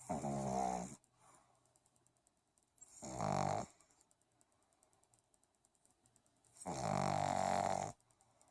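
Pug snoring in its sleep: three snores about three seconds apart, the middle one shorter than the other two.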